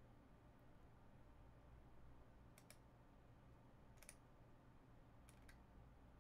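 Near silence, broken by a few faint clicks of a computer mouse and keyboard, in pairs about a second apart.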